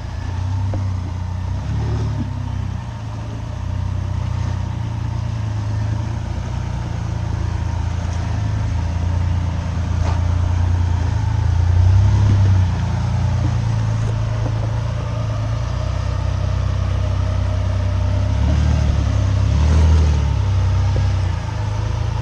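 Jeep Wrangler's engine running at low speed as it crawls over boulders, a deep steady rumble that swells with the throttle a few times, loudest about twelve and twenty seconds in.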